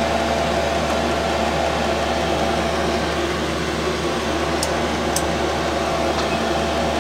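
5 kW diesel air parking heater running normally: an even blower rush with a steady hum. Two faint clicks a little past halfway come from a multimeter's dial and buttons.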